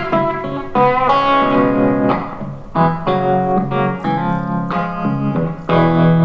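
Background music played on piano, with chords struck about once a second and no singing.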